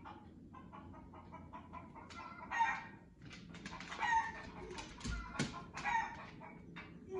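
Chickens clucking and calling, played from a TV video through its soundbar speakers: rapid short clucks at first, then several louder drawn-out calls from about two seconds in. A low thump about five seconds in.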